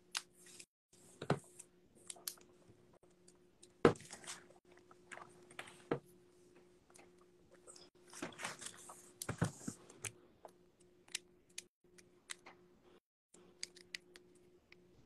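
Scattered small clicks, taps and short rustles of handling close to the microphone, over a faint steady low hum.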